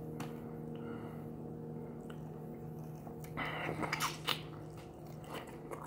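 Crispy fried chicken wing being bitten and chewed, with a short run of crunchy crackles and clicks between about three and four and a half seconds in. A steady low hum sits underneath.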